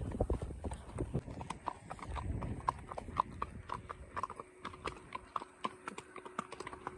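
Horses' hooves clip-clopping steadily on a dry dirt track, the ridden horse's steps close to the saddle-mounted camera. A low wind rumble on the microphone fills the first second or so.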